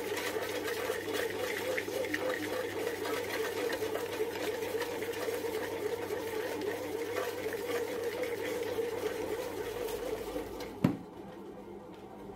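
Bread machine running, its motor turning the kneading paddle in the dough with a steady hum. About eleven seconds in the lid shuts with a single sharp clack, and the machine then sounds quieter behind the closed lid.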